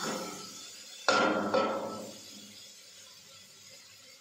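A metal spoon knocking on the rim of a steel pressure cooker during stirring: a sharp clang about a second in with a short ringing tail, a lighter knock half a second later, then only faint stirring.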